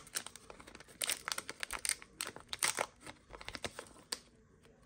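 Foil trading-card booster pack being torn open and crinkled by hand: a quick run of sharp crackles and rips that stops about four seconds in.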